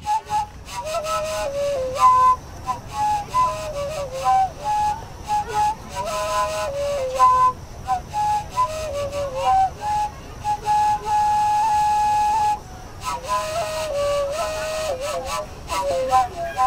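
Andean flute playing a carnival melody: a single line of short stepping notes with some longer held notes, briefly pausing about three quarters of the way through.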